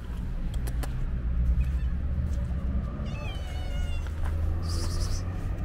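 A hungry calico stray cat meowing once, a drawn-out meow of about a second that falls slightly in pitch, about three seconds in. A steady low rumble runs underneath, and a short high hiss comes near the end.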